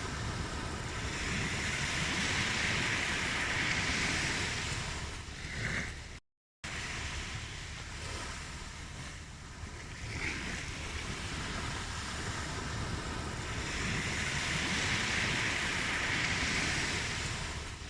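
Ocean surf washing onto a shore in two slow swells, each rising and falling away. The sound cuts out briefly about six seconds in.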